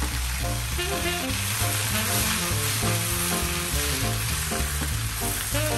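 Sliced potatoes, onion and mushrooms sizzling as they fry in olive oil in a non-stick pan, a wooden spatula stirring through them, with background music.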